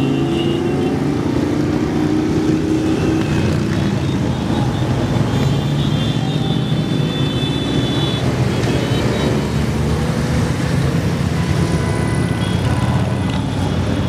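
Engines of a column of motorcycles and cars running together in a steady drone, with faint thin high tones over it about six to eight seconds in.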